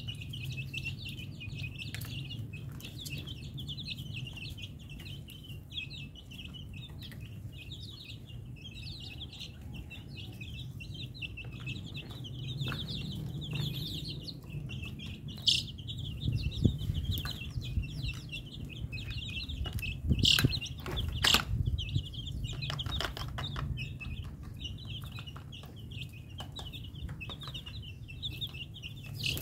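A flock of young chicks peeping continuously, many high, short calls overlapping. A few sharp taps cut through, the loudest three about halfway and two-thirds of the way through.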